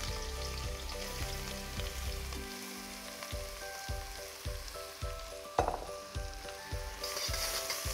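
Grated root vegetables sizzling as they fry in hot olive oil in a pot while being stirred. Soft background music with a steady low beat plays underneath.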